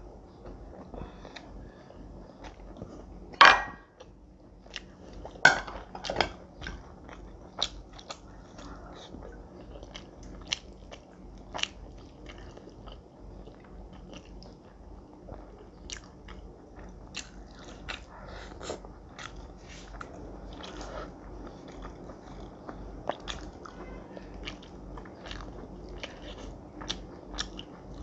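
A person eating close to the microphone: chewing and biting rice and fried fish with wet mouth clicks and many small crunches. The loudest are a few sharp crunches in the first seven seconds.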